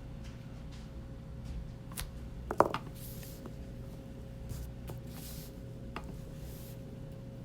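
Steady low electrical hum with a faint constant tone, over which come scattered light clicks, one sharper louder click about two and a half seconds in, and a few soft rustles.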